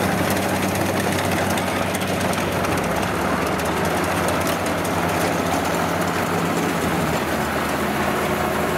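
Kubota DC70 combine harvester running steadily as it cuts rice, its diesel engine the main sound.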